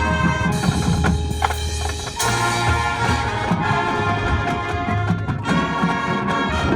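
High school marching band playing: brass chords over low held bass notes, with percussion. The music shifts to a new passage about two seconds in.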